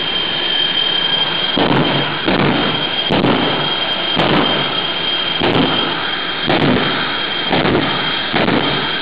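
A jet-powered truck's jet engine running with a steady high whine under a loud rushing roar. The roar surges about once a second as flames shoot from its twin exhaust stacks.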